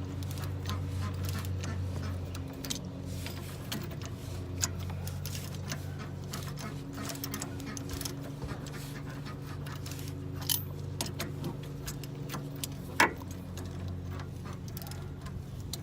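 Small metallic clinks and taps of tools and parts being handled during a car repair, over a steady low hum. A sharper metal click stands out about 13 seconds in.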